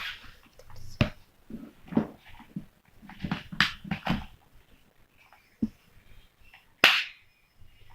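Handling noises from a toy air gun and its packaging being unboxed: irregular knocks, clicks and rustling, with one sharp, loud click about seven seconds in.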